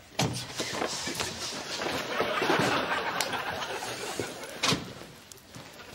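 Sitcom studio audience laughing (laugh track): it breaks out suddenly, swells and fades away over about four seconds. A single sharp thump comes near the end.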